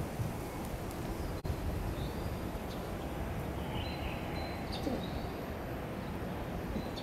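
Outdoor ambience of a steady low rumble, with a few faint, short bird chirps now and then.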